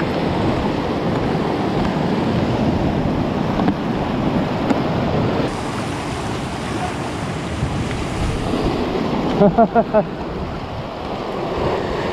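Sea waves surging and breaking on a rocky shore, with wind buffeting the microphone. About ten seconds in, four short pitched sounds come in quick succession.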